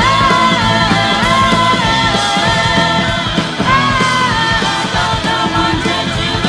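Heavy metal band recording with guitars, bass and drums, with a high melody line of held notes that bend in pitch over the top.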